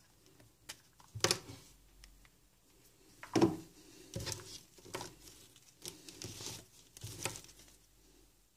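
Handling noise on a table: a series of knocks and rustles as a smartphone and the earphone cable are moved about and put down. The loudest knocks come about a second in and three and a half seconds in.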